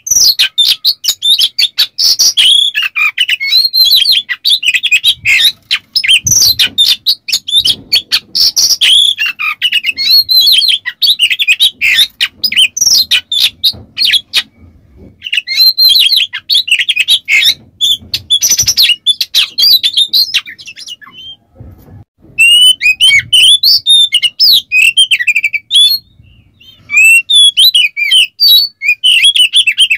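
Oriental magpie-robin (kacer) singing loudly in long, rapid runs of whistled glides mixed with harsh, clicking chatter. The song breaks off briefly about halfway, and twice more in the last third.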